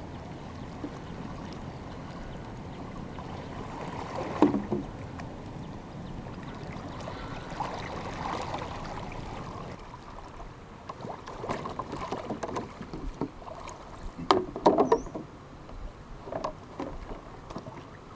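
Stream water running steadily, with a few short irregular knocks, the loudest about four seconds in and a pair around fourteen to fifteen seconds in.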